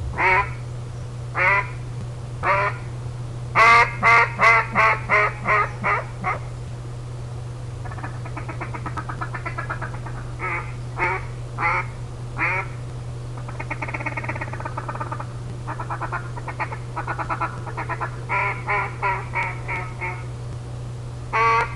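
A duck call with a burnt-hedge (Osage orange) wood barrel and acrylic insert being blown in demonstration: single quacks, then about four seconds in a run of about seven loud quacks that fade one after another. After that come stretches of fast rolling chatter mixed with short quack runs. A steady low hum sits underneath.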